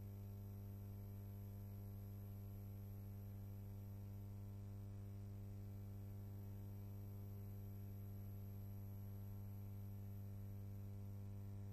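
Steady low electrical hum with a faint hiss and no other sound: the background noise of a silent archival film transfer.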